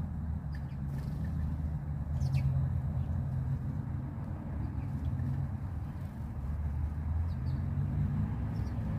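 Steady low mechanical rumble, like a vehicle engine, with a few faint, short bird chirps.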